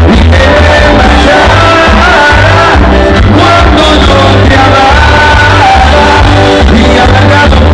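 Loud music with singing over a steady, pulsing bass line.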